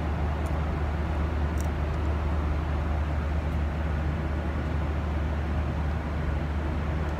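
Steady low rumble and rushing air noise inside a jet airliner's cabin, from the engines and ventilation, with a few faint small clicks.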